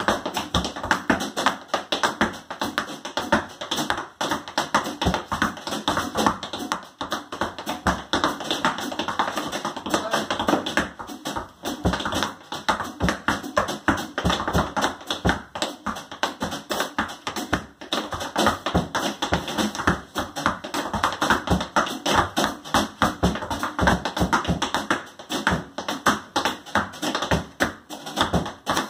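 Tap shoes striking a wooden tap board in fast, dense rhythms, with hardly a pause. An electric guitar and drum kit play along.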